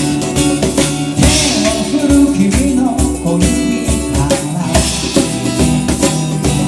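Live acoustic band playing a song: ukulele and acoustic guitar strummed over hand percussion, with a man singing lead.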